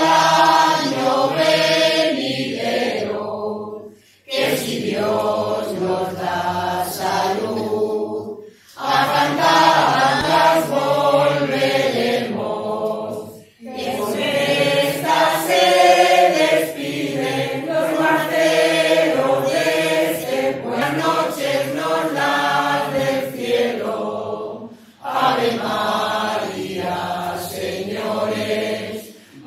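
A choir of men and women singing unaccompanied, in sung phrases separated by brief pauses for breath.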